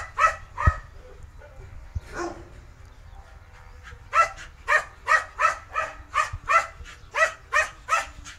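Small Patterdale–Jack Russell cross dog barking in high, sharp barks. Two barks, a pause of about three seconds, then a quick, even run of about three barks a second.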